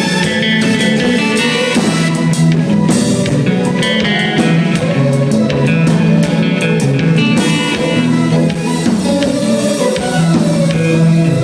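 Live band playing: guitar over a bass line and a drum kit, with cymbal hits thickest through the middle.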